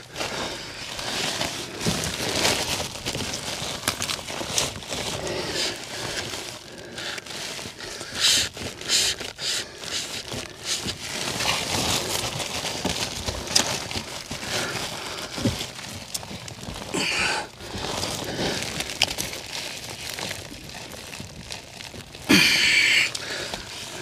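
Irregular rustling, crinkling and scraping as a person crawls and shifts about in a cramped attic crawl space, with a louder rustle near the end.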